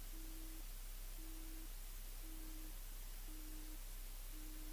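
A low-pitched electronic beep, about half a second long, repeating about once a second, over a steady deep hum and hiss.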